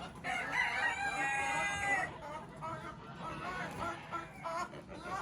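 A rooster crows once, a long call lasting under two seconds, followed by shorter, quieter calls of other farm fowl.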